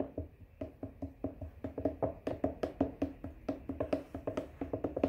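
Wooden spoon stirring liquid in a plastic pitcher, knocking against the pitcher's walls about three to four times a second in an uneven rhythm.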